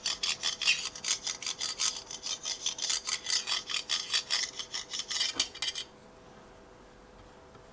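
A small metal bar scraped quickly back and forth across laser-engraved grooves on a stainless steel plate, chattering as it catches in the engraved lines; the sound shows how deeply the 10 W diode laser has marked the steel. The scraping stops about six seconds in.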